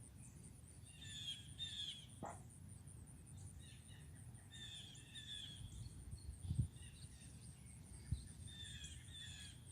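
Songbirds singing in short repeated phrases, three bursts of song, over a steady low outdoor rumble. Two soft low thumps come a little after the middle.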